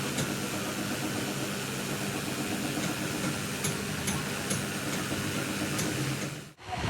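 A workshop machine running steadily, a low hum over a constant hiss with a few faint ticks, cutting off suddenly near the end.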